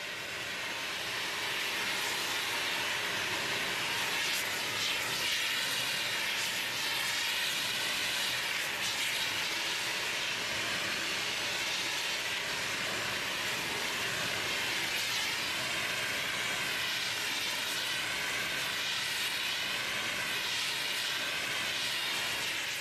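Gas heating torch burning with a steady hiss as it heats the swaged ends of steel locomotive boiler flues to stress-relieve the metal.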